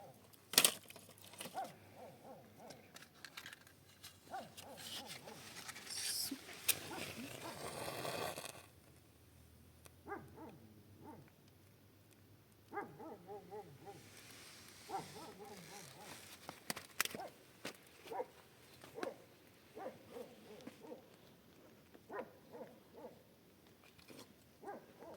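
An animal whimpering in short, repeated pitched calls, with scattered clicks and knocks. A rushing noise comes in about six seconds in and stops suddenly a couple of seconds later.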